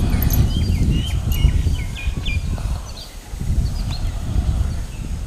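Small birds chirping in a quick run of short calls for the first two and a half seconds, with a few more calls later, over a steady low rumble on the microphone.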